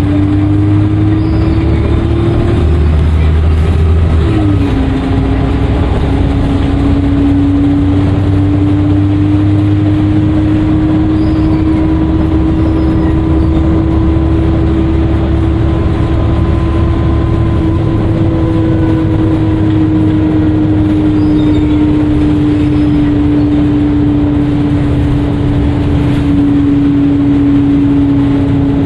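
Dennis Trident II double-decker bus under way with its engine running and a loud, steady turbo whistle over a low engine rumble. The whistle drops sharply in pitch about four seconds in, as at a gear change, then holds and eases slightly lower near the end.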